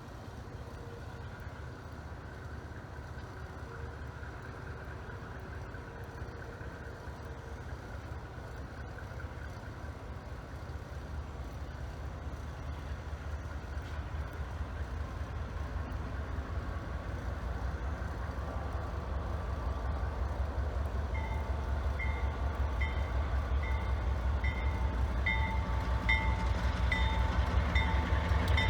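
Diesel locomotives of an approaching loaded grain train, a low rumble growing steadily louder. About three quarters of the way in a grade-crossing warning bell starts ringing, a little more than one ring a second.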